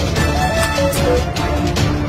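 Background music with a steady beat and a melody line.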